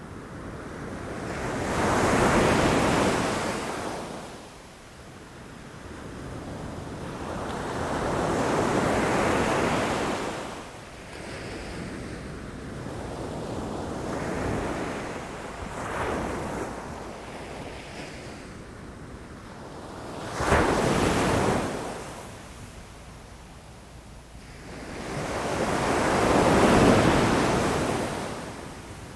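Ocean waves breaking against rocks, the surf swelling and ebbing in surges every few seconds, with one sharper crash about two-thirds of the way through. Wind on the microphone adds a low rumble underneath.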